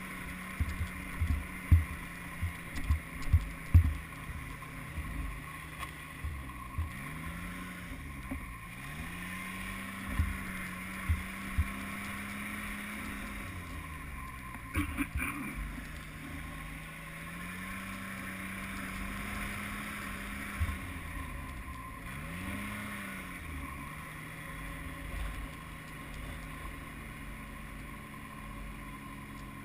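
Snowmobile engine running under way, its pitch dipping and climbing back three times as the throttle eases and opens again. Wind rushes over the microphone, with sharp low thumps clustered in the first four seconds and a few more later.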